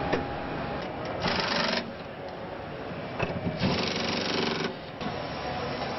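Car assembly-line din, steady, broken by two short hissing bursts of a power tool: one about a second in, a longer one of about a second past the halfway mark, with a few sharp clicks between.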